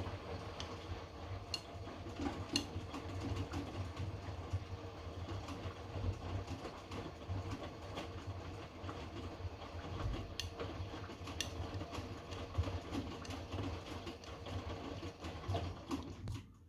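Hotpoint washing machine's drum turning during the heating stage of a Cotton 90° wash, a steady mechanical hum with scattered clicks and knocks from the tumbling load. It stops abruptly near the end.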